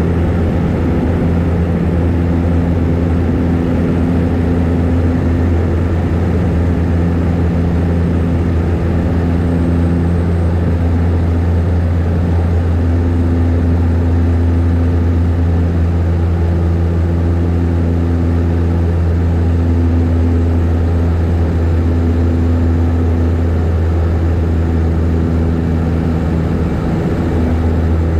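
De Havilland Canada DHC-6-300 Twin Otter's turboprop engines and propellers running steadily in flight, heard inside the cabin: a loud, low propeller hum over a rushing noise, with higher tones that fade in and out every few seconds.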